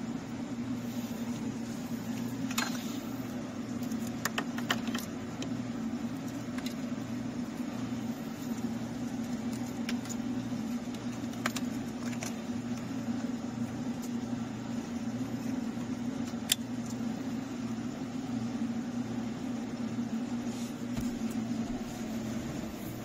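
Plastic wiring connectors and harness being handled behind a car dashboard, giving scattered sharp clicks and rattles, a cluster of them about four to five seconds in, over a steady low hum.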